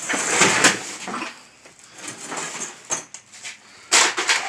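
Hand rummaging through a plastic tote of loose items: irregular rustling and clattering, with a loud clatter a little before the end.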